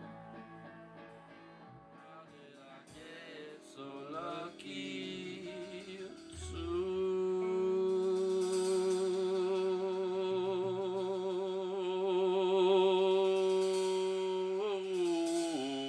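Live band music: quiet picked guitar notes, then about six seconds in a long held note with vibrato, probably sung, that swells louder and slides down in pitch near the end.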